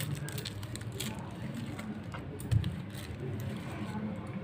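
Rolling pin pressing and rolling biscuit dough flat under a plastic sheet: soft rubbing and crinkling of the plastic with small clicks, and a dull thump about two and a half seconds in, over a low steady hum.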